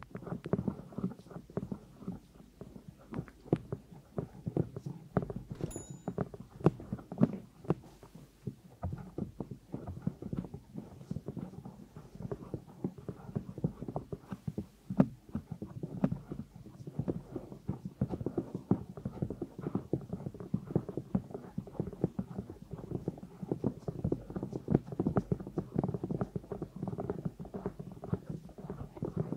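Fingertips and long painted nails tapping rapidly on the silicone ears of a 3Dio binaural microphone, a dense, dull patter of taps close to the microphone.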